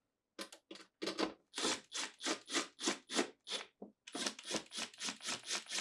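Cordless driver running two screws into a refrigerator's sheet-metal cover panel: a rasping sound that pulses about three times a second, in two runs with a short break about four seconds in.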